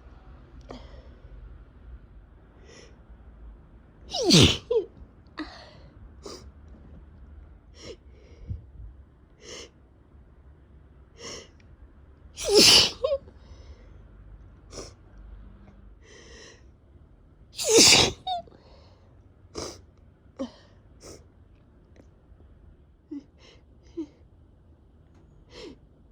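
A person with a head cold and a runny, irritated nose sneezing repeatedly during a long sneezing attack. Three loud sneezes come about 4, 13 and 18 seconds in, with many short, quieter sounds in between.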